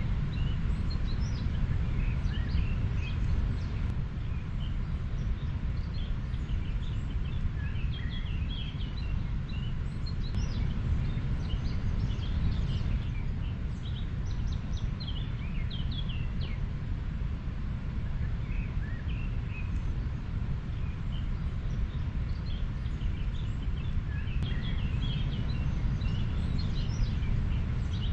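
River water flowing as a steady low rush, with small birds chirping many times over it.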